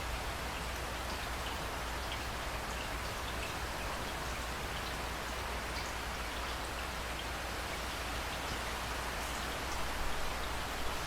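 Steady rain falling, a dense even hiss with scattered individual drops pattering on a surface. A few slightly louder spatters come near the end.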